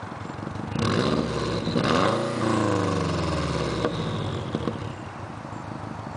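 2004 Subaru WRX's turbocharged flat-four engine, breathing through an HKS turbo-back exhaust and Injen cold air intake, idling and then revved once about a second in. The revs fall back over a couple of seconds to a steady idle.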